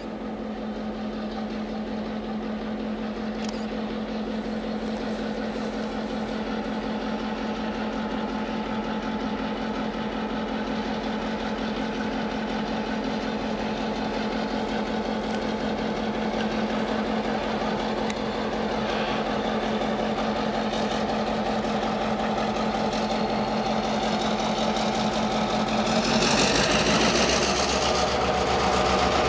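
EMD GP9 diesel locomotive's 16-cylinder two-stroke engine running with a steady drone, growing steadily louder as it approaches. Near the end the engine note drops as the locomotive goes by, and the rattle of the freight cars rolling over the rails takes over.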